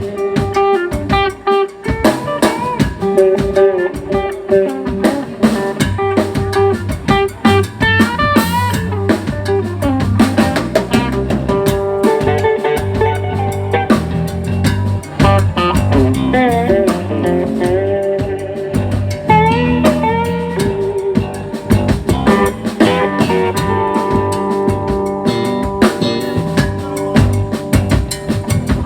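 Live band playing an instrumental break: electric guitar lead with bent, wavering notes over bass guitar and a drum kit.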